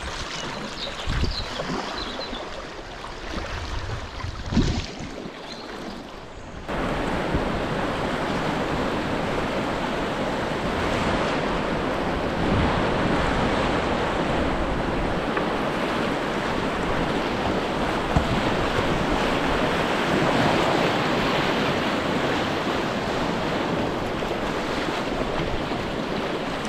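A kayak paddle splashing a few strokes in calmer river water, then from about seven seconds in, the steady loud rush of whitewater rapids around the kayak.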